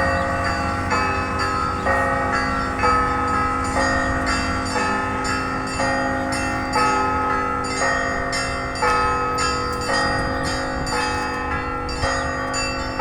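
Church bells ringing. Several bells of different pitch are struck in a steady pattern about once a second, with quicker strokes from small high bells, over the lingering ring of a low bell.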